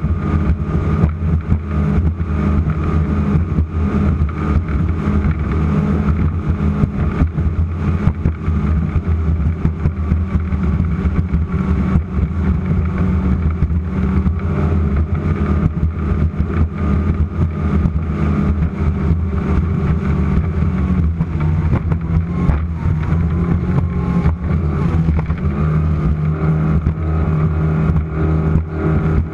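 Offshore racing powerboat's engines running at speed: a steady deep drone under constant rough buffeting, the pitch shifting a little about 21 seconds in.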